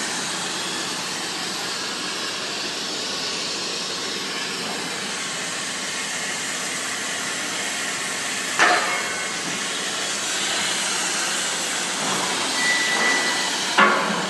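CNC plasma cutting torch hissing steadily as it cuts, with one sharp click about two-thirds of the way through and a short beep near the end.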